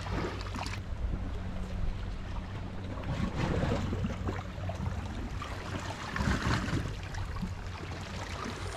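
Sea water washing and surging against the shore, with wind on the microphone and a steady low motor hum underneath.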